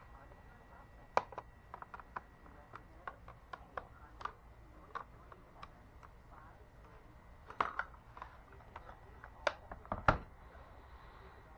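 Irregular sharp clicks and taps of a laptop's plastic case and parts being handled, the loudest about a second in and a cluster near the end.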